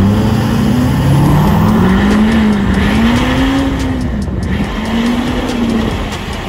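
A 6.6-litre LML Duramax V8 turbo-diesel accelerating hard through a 5-inch straight-pipe exhaust with the DPF deleted. It is a loud, deep drone whose pitch climbs and dips several times as the truck pulls.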